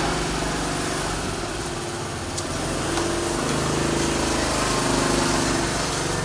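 A small engine running steadily, its low hum wavering a little in pitch and growing somewhat louder after the middle.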